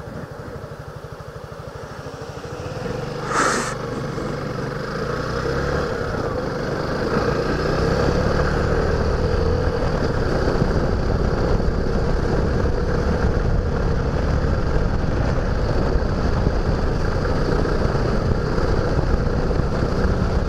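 Suzuki Gixxer's single-cylinder engine ticking over with even low pulses, then pulling away about two seconds in and running louder and steadier as the bike gathers speed, with road and wind noise building alongside. A short hiss sounds about three and a half seconds in.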